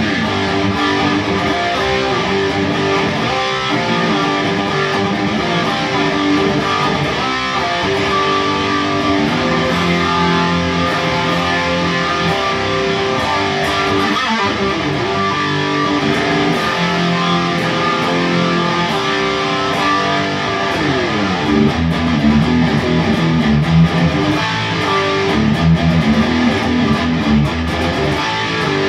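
Overdriven electric guitar, a Kramer Pacer played through a Peavey Windsor amp with a Boss SD-1 overdrive and a subtle chorus, playing a heavy rock riff of held chords. About two-thirds of the way through, a note slides down, and the riff moves to lower, choppier chords.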